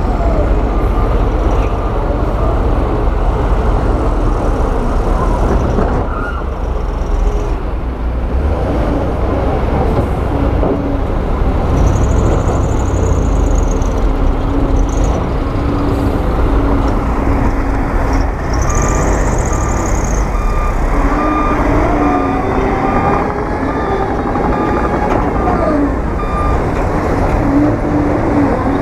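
Heavy diesel construction machinery working, with engines running steadily, the bulldozers and dump trucks of a rock-pushing job. In the second half a reversing alarm beeps repeatedly, and a couple of brief high squeals cut through a little before and after the middle.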